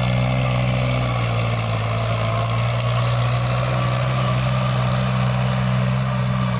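Sonalika tractor's diesel engine running steadily at constant speed, a low even hum.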